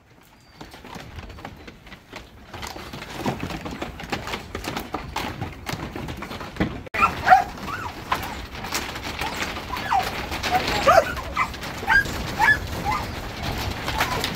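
Kelpie Koolie cross working dog barking in short yaps, a string of them from about seven seconds in, over sheep hooves clattering on the slatted wooden shearing-shed floor as the mob is pushed along. The first couple of seconds are quiet before the clatter builds.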